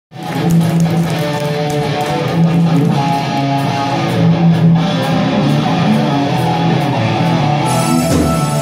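Live hard rock band playing, with electric guitars and keyboard sustaining held notes over a steady loud backing.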